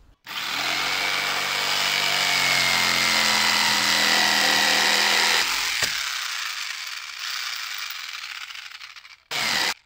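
Corded electric drill running with its trigger locked on, driving a drill-attached water pump: a loud, steady motor whine starts just after the start, holds for about five seconds, then drops off and dies away, with a short burst of running again near the end.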